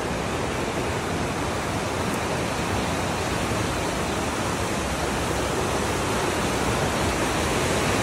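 Steady rushing of a waterfall and its rocky creek, growing a little louder over the few seconds.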